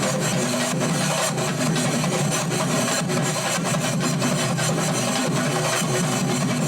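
Sinkari melam, a Kerala ensemble of chenda-type drums, playing a fast, continuous rhythm of dense, rapid strokes at a steady, loud level.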